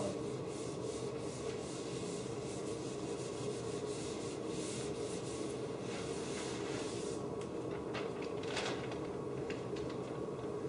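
Whiteboard eraser wiping marker off a whiteboard in rapid repeated strokes for about seven seconds, then a couple of last separate wipes near the end.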